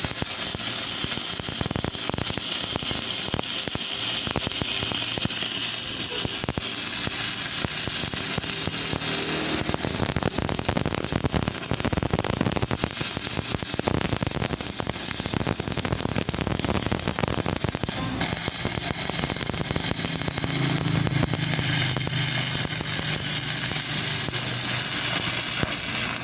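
Stick-welding arc crackling steadily and continuously as a 2.6 mm electrode burns down. This is the sixth rod of a full-load test of a freshly serviced arc welding machine.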